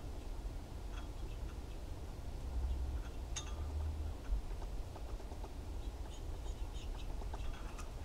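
Outdoor winter ambience: a steady low rumble with faint, short high chirps of small birds scattered through it, the clearest about three and a half seconds in and a few more near the end.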